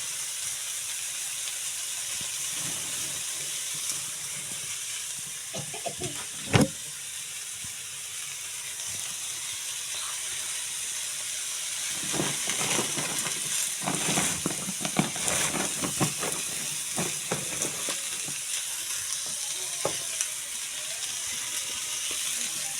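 Potato and pea curry sizzling in a pan with a steady hiss. A spoon knocks and scrapes against the pan: one sharp knock about six seconds in, and a run of stirring strokes in the middle of the second half.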